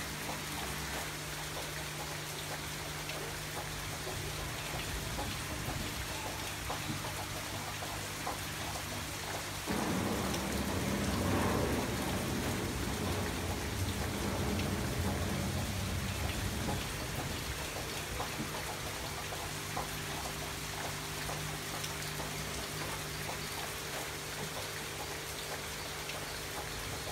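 Steady rain pattering. From about ten seconds in, a louder, deeper rumble lasts roughly seven seconds before the rain settles back to its even level.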